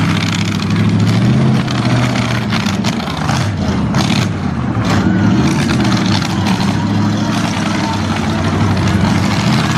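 Demolition-derby pickup truck engines running and revving hard, the pitch rising and falling, with a couple of sudden knocks of trucks colliding about four and five seconds in.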